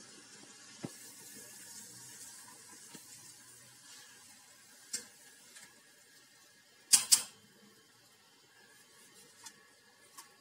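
Faint hiss of sugar syrup boiling in a steel pot, dying away over the first few seconds, with a few clicks of a utensil against steel. A sharp double clack about seven seconds in is the loudest sound.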